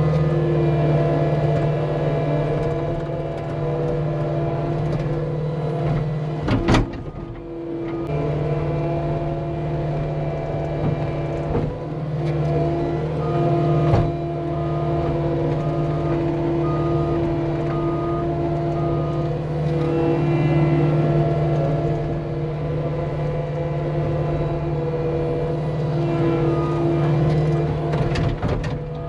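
Cat 259D compact track loader's diesel engine running steadily under load while moving dirt, with a sharp clunk about a quarter of the way in and another knock around the middle.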